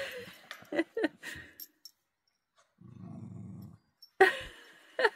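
West Highland terriers making short, sharp yaps, with a low growl about three seconds in and louder yaps near the end.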